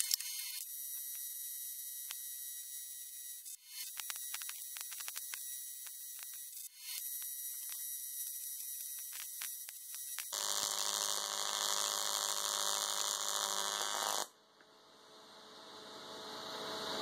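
TIG welding arc from a water-cooled WP-20F torch: a steady electrical hum and hiss with a run of crackles about four seconds in. It grows louder and fuller about ten seconds in, drops suddenly about fourteen seconds in, then slowly builds again.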